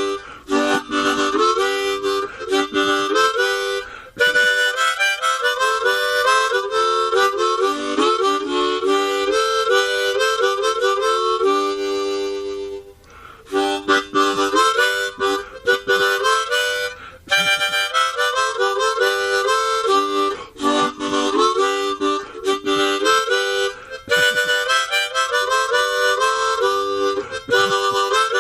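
Harmonica music: a melody of quickly changing notes, with a short break about halfway through.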